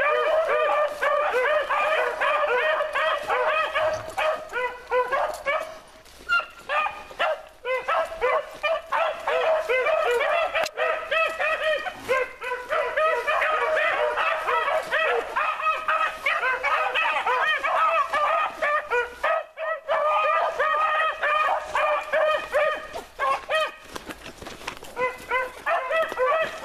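A pack of four beagles baying together in an unbroken, overlapping chorus as they run, with brief lulls about six seconds in and again near twenty seconds.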